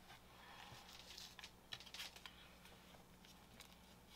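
Near silence with a low steady hum, broken by faint scattered clicks and rustles of trading cards being handled and flipped.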